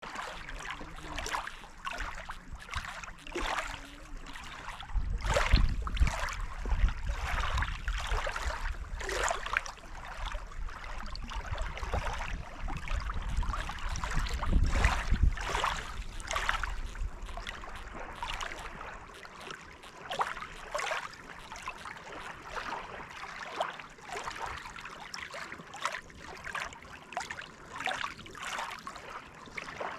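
Small lake waves lapping and splashing against the shore in irregular slaps about every second. A low rumble swells under the water between about 5 and 16 seconds in.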